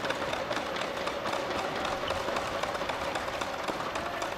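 Steady hum of an indoor tennis arena's room ambience, with scattered light taps and clicks.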